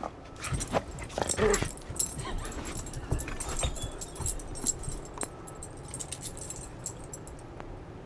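A greyhound whimpering briefly about a second and a half in, among scattered clicks and knocks that thin out after the first three seconds.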